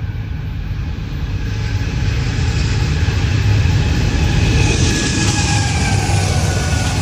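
Freight train passing at speed: a deep, steady rumble of locomotives and wheels on rail that grows louder, with a hiss rising about five seconds in and faint tones sliding slowly down in pitch.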